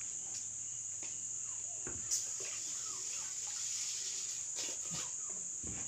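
Steady high-pitched drone of insects, with a few sharp clicks of a knife working a green bamboo tube, the loudest about two seconds in, and faint chirps of fowl.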